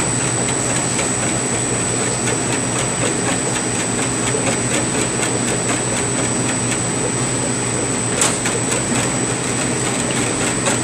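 Steady machinery hum with a thin, constant high whine, over faint rhythmic ticking from a utensil stirring liquid ice cream mix in a plastic measuring pitcher.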